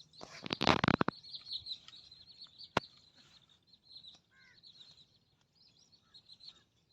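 Small birds chirping continuously in rapid high notes, with a few lower falling call notes just after the middle. A brief loud burst of rustling, knocking noise comes about half a second in, and a single sharp click near three seconds.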